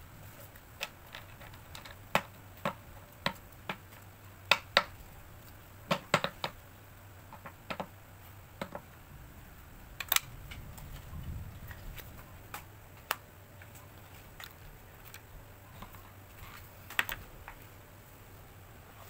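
Irregular light taps and clicks as stacks of cut paper memo sheets are handled, squared up and set down on a paper trimmer's base.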